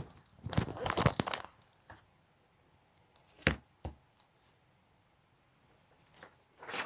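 Handling noise from a phone being set up on a table: bursts of rustling and scraping, a single sharp knock about three and a half seconds in followed by a few light taps, then more rustling near the end.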